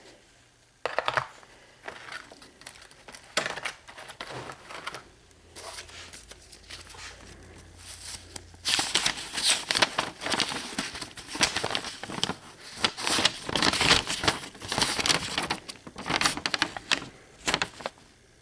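Hand tools being handled and moved about: rustling and light clicking, which turn into a dense run of clatter and rustle about halfway through.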